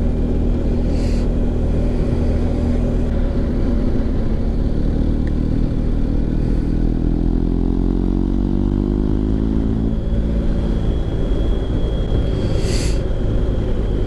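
BMW R 1250 GS Adventure's boxer-twin engine breathing through a Remus Hawk slip-on silencer, running under way with wind noise on the helmet microphone. Its note climbs steadily as the bike accelerates and drops at a gear change about ten seconds in.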